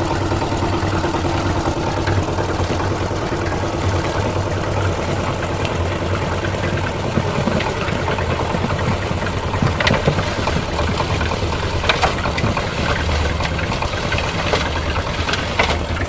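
Construction-site concrete mixer running steadily, its engine humming as the drum keeps turning the finished mix of sand, gravel, cement and water. A few sharp knocks stand out in the second half.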